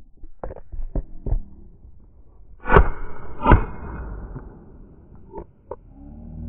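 Two shotgun shots about a second apart, each followed by a ringing echo, with a few lighter sharp knocks before and after.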